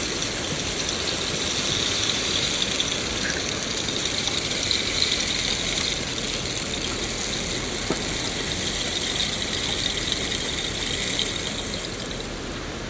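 Steady rain falling, an even hiss with no rhythm.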